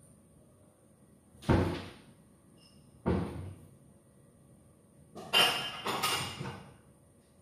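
Kitchen cupboard doors being shut: two sharp knocks about a second and a half apart, then a longer rattling clatter near the end.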